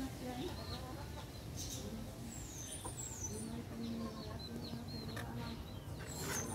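Chickens clucking, including low drawn-out calls, with high, falling bird chirps and a few short clicks over them.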